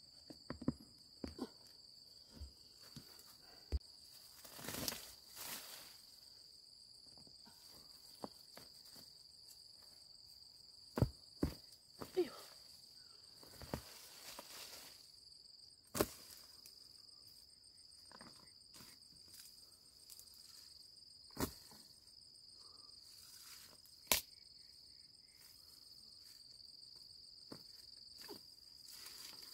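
Irregular sharp knocks, snaps and rustles of cassava being dug up, as soil is broken and the roots are pulled free by hand and machete. Insects chirr steadily and high-pitched underneath.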